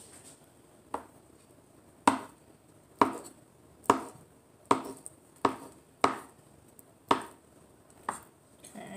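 Kitchen knife chopping avocado: nine sharp chops at an unhurried pace, roughly one a second.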